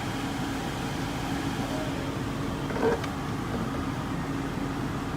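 Steady hum of the 2013 GMC Yukon's newly replaced rear HVAC blower fan running, with a short knock about three seconds in.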